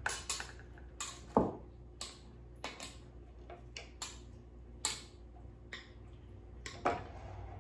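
A metal spoon clicking and clinking against the container of pickled red onions as they are scooped out and spooned onto toast: a string of short irregular taps, the loudest about one and a half seconds in.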